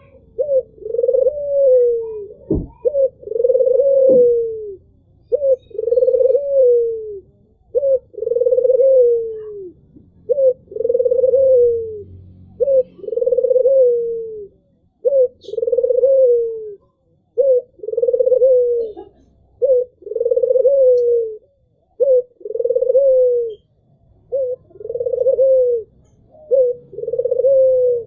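Albino Barbary dove (white ringneck dove) cooing over and over: a short note, then a longer coo that falls in pitch at its end, repeated about every two seconds. A single sharp knock comes about two and a half seconds in.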